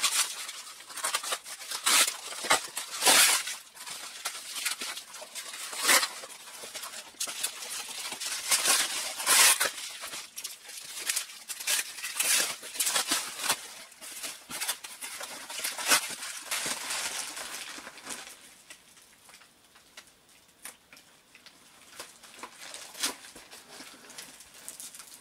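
Packaging being cut and torn open by hand: tape and wrapping scraping and ripping in quick, irregular strokes, growing much quieter about three-quarters of the way through.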